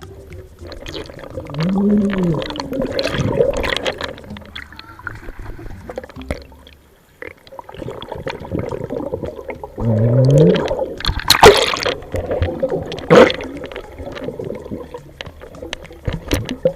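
Water gurgling and sloshing as heard by an action camera held underwater in a stream, with scattered clicks and knocks. Two muffled, wavering low tones come about two seconds in and again about ten seconds in. The sharpest knocks fall near the end.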